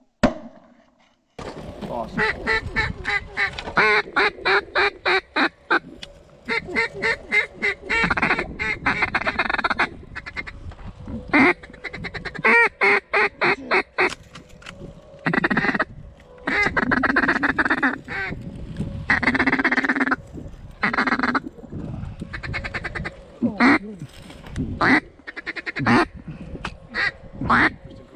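Duck quacking, starting about a second and a half in: loud runs of quick, stuttering quacks and longer drawn-out quacks, with short gaps between them.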